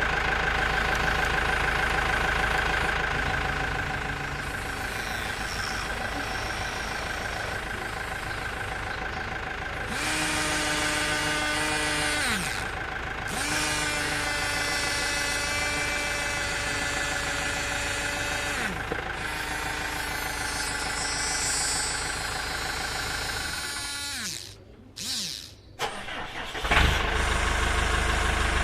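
A motor running steadily, with a higher whine that spins up and then winds down twice, about ten and about fourteen seconds in. The sound drops out briefly near the end, then resumes.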